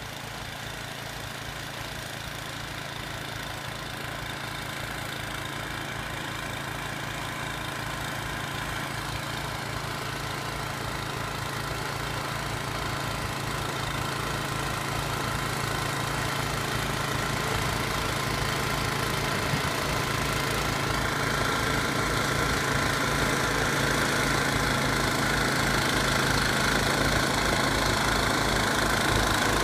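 An engine running steadily with an even low pulsing beat, growing gradually louder.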